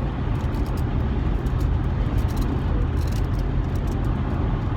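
Steady road and engine rumble heard inside a moving car's cabin, with faint light clicks now and then.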